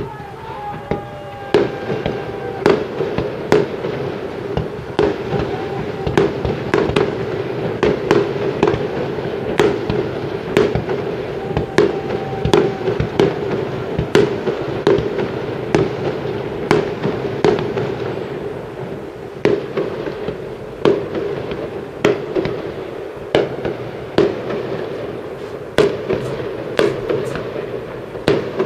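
Aerial fireworks display: shells bursting one after another, often several a second, over a continuous din between the reports. A few thin whistling tones are heard near the start and again about halfway through.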